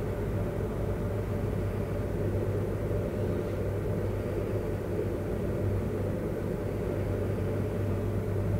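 Cozy MKIV canard airplane's engine and pusher propeller running with a steady low drone, heard from inside the cockpit during the landing flare as the plane bleeds off speed over the runway.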